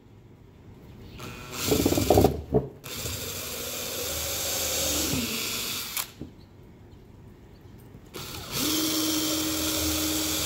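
18V cordless drill spinning a nail chucked in as a makeshift bit, drilling pilot holes into soft pine. After a short burst early on come two long steady runs: the first winds down in pitch and stops about five seconds in, and the second starts about eight seconds in and keeps running.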